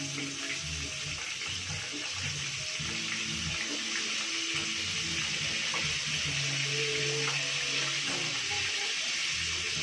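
Chicken pieces deep-frying in hot oil: a steady sizzling hiss, with a few light clicks of metal tongs against the pan.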